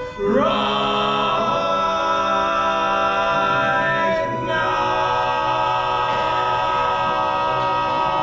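Men's barbershop quartet singing a cappella, holding the song's closing chords in four-part harmony. The voices slide up into a chord just after the start and hold it for about four seconds, then break briefly and sustain a final chord to the end.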